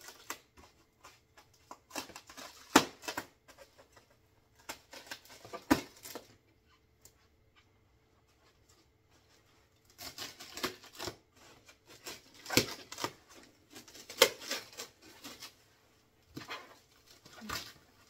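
A knife cutting and tearing through the white wrapping of a large box, in irregular bursts of sharp scraping and crackling, with a quiet pause of a few seconds in the middle.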